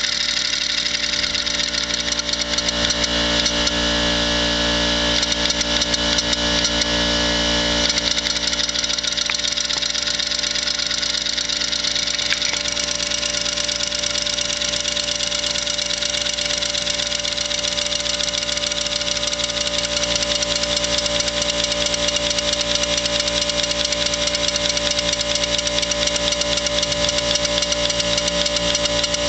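Hand-made 1-inch scale live steam traction engine with a single cylinder, running steadily on compressed air.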